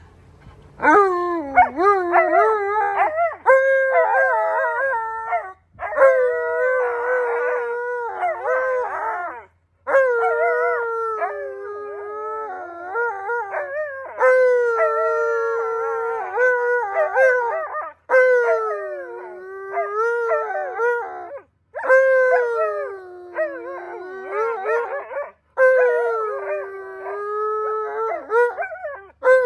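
Siberian husky howling in a run of about seven long howls, each several seconds long with short breaks between them, the pitch sliding up and down in a wavering, talking way.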